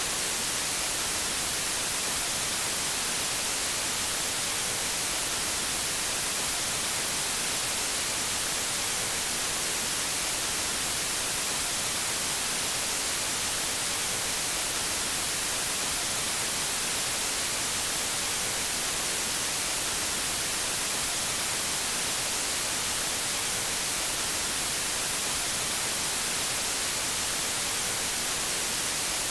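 TV static noise: a steady, unbroken hiss, strongest in the high treble.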